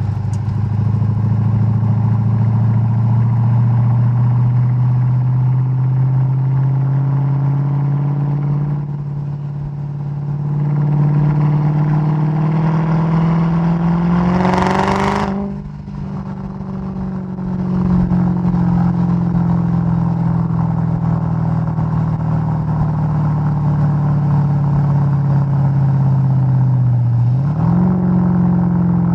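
Supercharged 5.4-litre V8 of a Mercedes-Benz E 55 AMG (W211) running at low revs under way. The throttle comes off and back on a couple of times, the engine note falls and climbs, and there is a brief hiss about halfway through. Near the end there is a quick rise in pitch.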